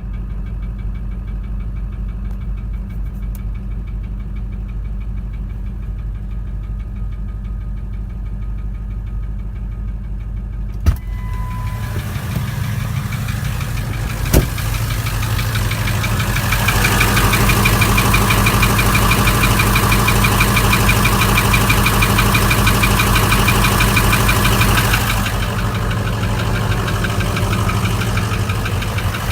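Ford 6.0L Power Stroke V8 turbo-diesel running at idle, with a fault put down to a bad injector. The engine is muffled at first. After a click about eleven seconds in it turns louder and clearer, grows louder still, then drops back somewhat near the end.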